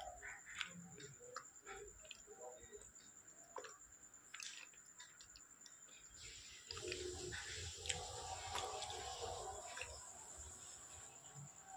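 A person chewing slate pencil in the mouth: faint crunching with scattered sharp clicks, then a louder, denser stretch of chewing noise about seven seconds in. A steady high-pitched whine runs underneath.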